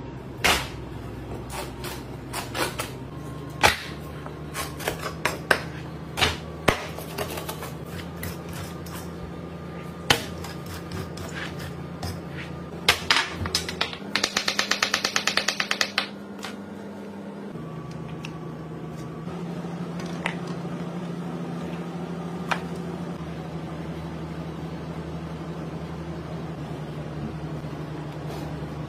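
Food-prep handling sounds: scattered knocks and taps of a fish and a knife on a work table, then about two seconds of rapid, even knife strokes slicing a potato, over a steady low hum.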